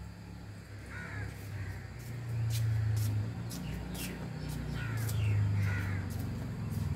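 Crows cawing in short, falling calls, several times in pairs, over a low engine hum that swells twice.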